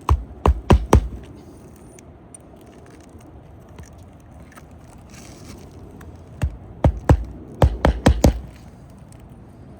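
Hammer striking on an asphalt-shingle roof during nailing work: four quick blows at the start, then a run of about seven blows a few seconds later.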